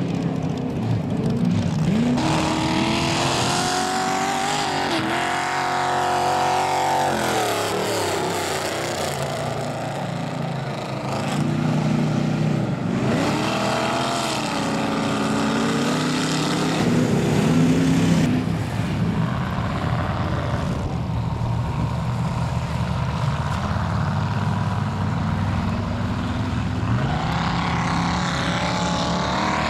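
Mud trucks' engines revving hard as they drive through a mud pit, the pitch climbing, holding and dropping off several times as the vehicles accelerate and ease off.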